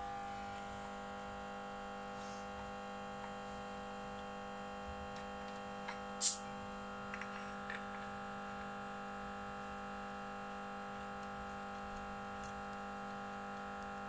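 Steady electrical hum, with one sharp metallic click about six seconds in and a few faint clicks after it, as a compression tester's screw-in fitting is handled at the spark-plug holes of an engine.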